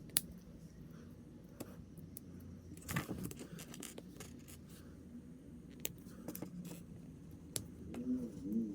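Small plastic model-kit pieces being handled and snapped together: scattered sharp clicks and clacks, the loudest just after the start and a quick cluster about three seconds in, over a steady low hum. A brief murmur near the end.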